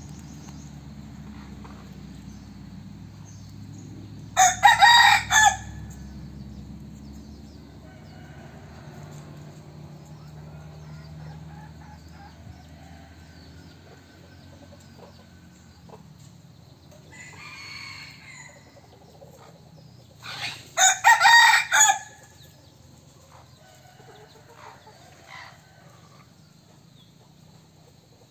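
A red junglefowl cock kept as a decoy crowing twice, about four seconds in and again about twenty seconds in, each crow short and broken into a few parts. A fainter bird call comes between them, and a low steady rumble runs under the first half.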